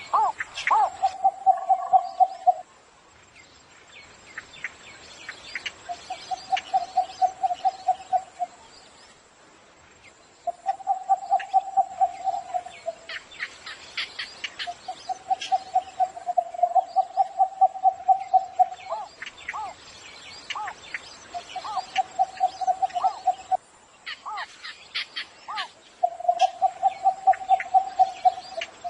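Cinnamon bittern calling: repeated runs of low, rapidly pulsed notes, each lasting two to three seconds and coming every few seconds, with higher chirps of other birds over them.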